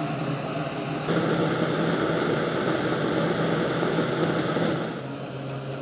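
Small canister gas camping stove's burner running with a steady hiss under a pot of heating water. It gets louder about a second in and drops back near the end.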